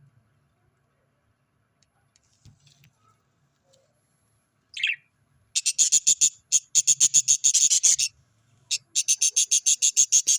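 Parrot chicks chirping: after a quiet start, one short high call, then two long runs of fast, evenly repeated high-pitched chirps, about eight a second, with a brief pause between them.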